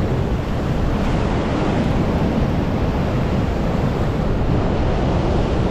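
Heavy ocean surf from a big swell crashing and washing over a rock shelf, a steady rushing wash with wind buffeting the microphone.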